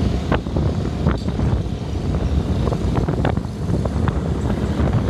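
Motorcycle on the move: steady engine and road rumble with wind buffeting the microphone, and a few short knocks.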